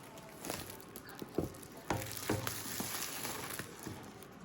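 Crackling, rustling handling noise with a few sharp knocks, the clearest about a second and a half and two seconds in.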